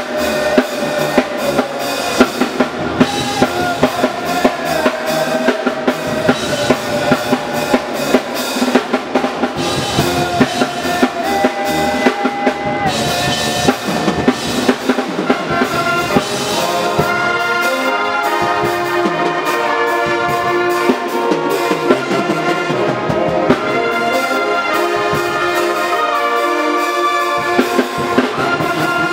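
Marching-style pep band of brass and drums playing. Drum hits drive a steady beat through the first half, then the horns (trumpets, trombones, saxophones and sousaphones) take over with a run of held, changing chords.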